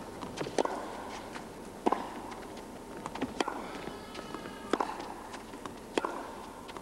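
Tennis ball struck back and forth in a rally, about five sharp racket hits roughly a second and a quarter apart, over a steady crowd hum.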